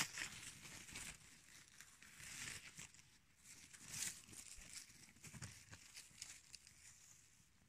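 Faint, intermittent rustling of low forest-floor plants brushed by a hand and the phone while mushrooms are picked, with a few soft crackles.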